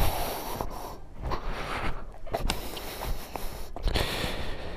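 Footsteps and scuffs on dry, sandy, crumbly earth, crunching irregularly, with rustling hiss that is loudest in the first second.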